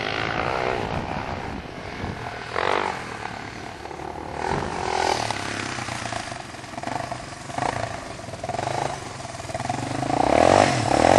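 Motocross bike engine revving up and down on a sand slope, the pitch rising and falling with the throttle, growing loudest near the end as a bike comes close.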